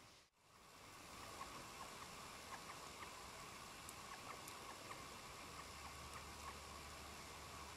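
Near silence: a faint, steady background hiss with a few tiny ticks, dropping out briefly just after the start.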